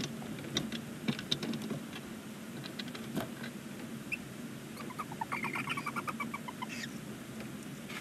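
Barn owl chittering in the nest box: a quick run of short, squeaky notes, several a second, for about a second and a half past the middle. Before it come scattered scratchy clicks and rustles as the owl shifts on the nest litter.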